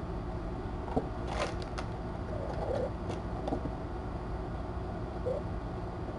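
Steady low hum of room noise, with a few faint scratches and taps about a second in and again around three seconds in, from cats and kittens clambering on a cardboard box and a sisal scratching post.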